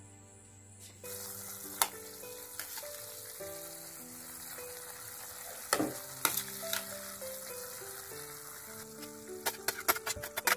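Food frying and sizzling in a pan, the sizzle starting about a second in, with a few knocks of a utensil against the pan and a quick run of clattering stirring near the end.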